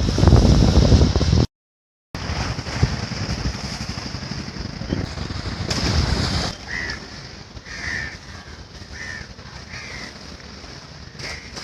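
Floodwater rushing through the barrage gates, with wind on the microphone, broken off by a cut. Then a quieter stretch where a bird calls repeatedly in short calls, about one a second.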